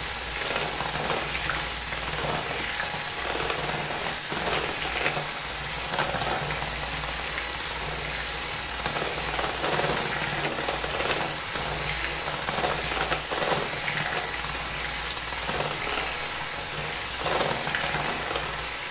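Small electric kitchen appliance running steadily, whipping salted yogurt cream as it thickens into a spreadable cream.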